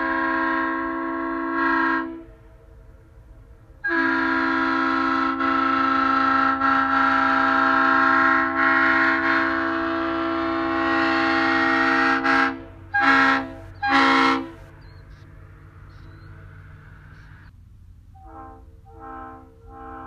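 Three-chime locomotive air horn (1992 Leslie RSL3LR) blowing a chord: a long blast ending about two seconds in, a second long blast of about eight seconds, then two short blasts. Three short, much quieter tones follow near the end.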